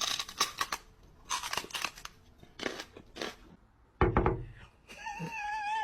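Irregular crunching and crinkling noises for about four seconds, then a sudden thump. About a second before the end a dog starts a high, wavering whine.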